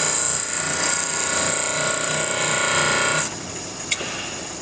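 Bench grinder wheel grinding the flank of a mild steel lathe-tool blank: a steady, high-pitched grinding hiss that stops abruptly about three seconds in as the blank comes off the wheel. The grinder keeps running after that, and there is a single light click shortly afterwards.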